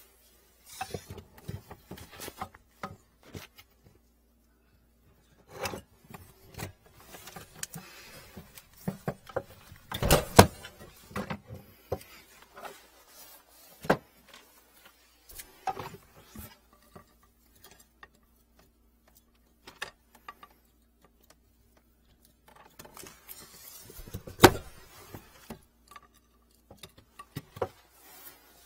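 Irregular clicks, knocks and short rustles of hand tools and corrugated plastic drain hose being handled during sink drain work, with two louder knocks, one about ten seconds in and one near the end.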